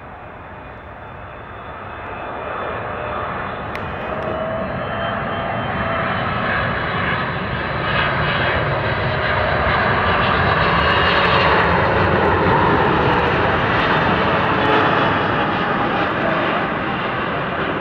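Boeing 777-200 twin-engine airliner on final approach with gear down: its jet engines rumble with a whine on top, growing steadily louder as it flies low past, loudest about two-thirds of the way in and easing slightly near the end.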